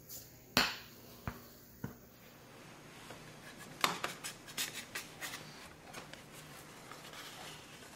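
Kitchen handling sounds: a sharp knock about half a second in and two lighter knocks, then a quick run of small clicks and taps, as the metal pizza pan is set down and handled on a granite countertop.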